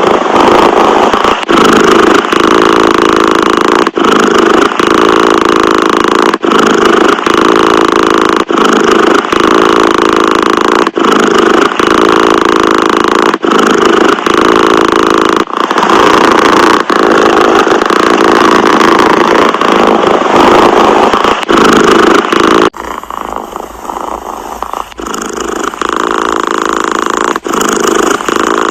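Domestic cat purring, a continuous rumble broken by brief dips every second or so. About 23 seconds in it turns quieter.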